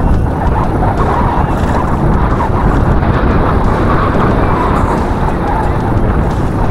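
Wind buffeting the camera microphone with a steady low rumble.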